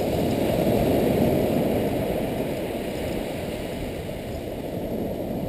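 Steady low rushing noise of breaking surf and wind, swelling slightly in the first second or so, with no distinct events.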